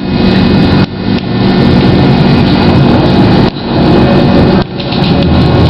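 GT6M low-floor tram's traction motors running under way, heard from inside the car, with an odd motor noise: a loud, steady drone carrying several steady tones. It dips briefly about three times.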